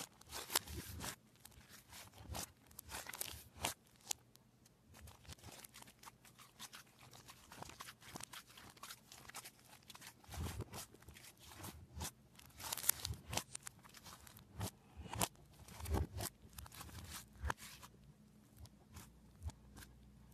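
Hands kneading, stretching and poking a thick slime, giving irregular squishy crackles and small clicking pops, with louder clusters now and then.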